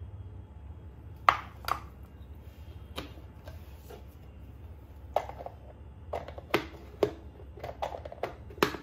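Sharp plastic taps and clicks: a plastic measuring cup knocked against a manual food chopper's plastic bowl and set down, then a run of clicks and knocks in the last few seconds as the chopper's lid is fitted onto the bowl.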